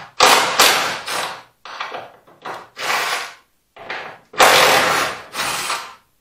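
Cordless impact driver running in about ten short stop-start bursts, rattling on screws in a wooden stand that holds up a car body.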